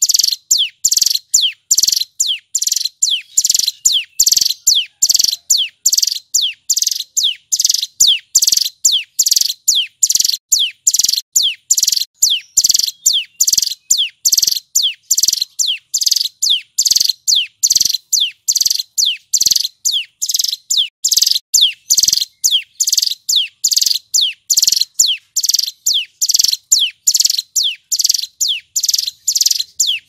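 A male ciblek gunung (mountain prinia) singing loud, rapid, non-stop repeated notes, about two to three a second, each a high note sliding downward in pitch.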